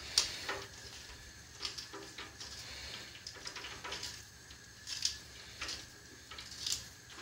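Faint kitchen handling sounds: a spoon and dishes giving several short, light clicks and scrapes, spread through, over a low steady hum.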